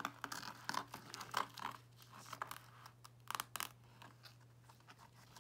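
A child's hands working the fastening tabs of a touch-and-feel nappy flap in a children's board book. The tabs are pulled and pressed down, giving faint, irregular scratchy rips and rustles.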